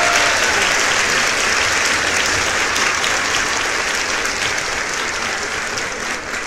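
Audience applauding, the clapping slowly fading away.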